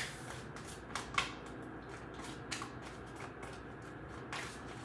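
Tarot deck being hand-shuffled overhand: soft, irregular clicks and slaps of card edges, with a sharper snap at the start and another about a second in.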